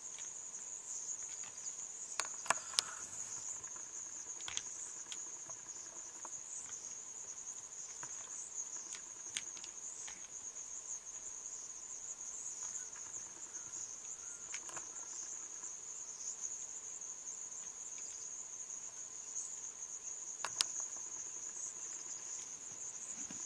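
Crickets chirring in a steady, high, even tone, with a few short sharp clicks: a cluster about two seconds in and another a few seconds before the end.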